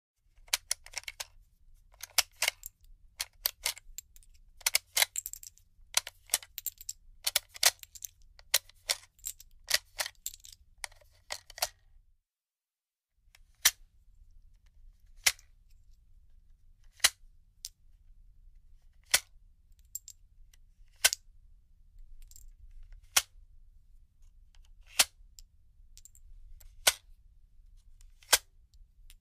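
Handgun handling sounds: sharp metallic clicks and clacks of a magazine being loaded and the gun readied. At first they come in quick clusters. After a short silence they come as single sharp clicks about every two seconds.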